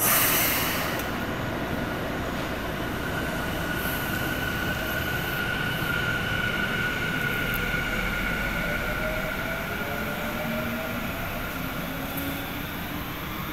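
A Tokyu 4000 series electric train pulling away from a station. A short hiss of air comes at the start, then its inverter and traction motors whine in several slowly rising tones as it accelerates, over the rumble of the train rolling past.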